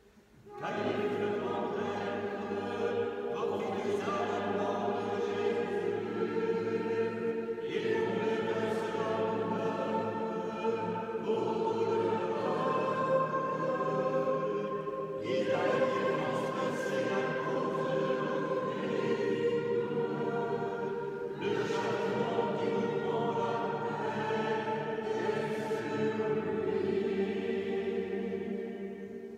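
Choir singing in harmony, several voices holding long phrases with short breaks between them, echoing in a stone church.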